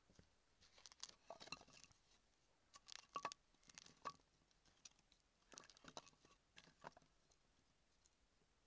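Light wooden knocks and clatters as dry sticks of kindling are laid down and knocked against one another, in several short clusters.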